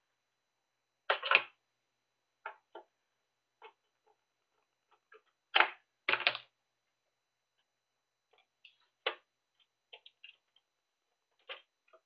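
Scattered clicks and light knocks of small hard-drive screws and a screwdriver handled against the sheet-metal case of a Hikvision network video recorder, a few louder knocks spread among fainter ticks.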